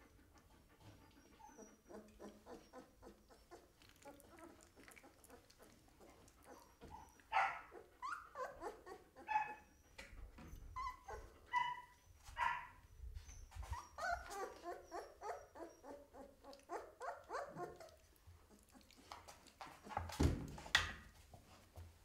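Seventeen-day-old Belgian Malinois puppies whimpering and squeaking, a run of short high calls starting about seven seconds in. A bump with some rustling near the end.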